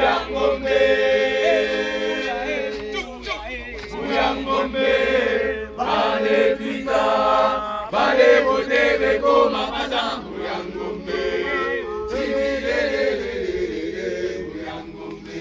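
A group of voices chanting a campfire song together in unison, without instruments, in held notes that rise and fall in pitch.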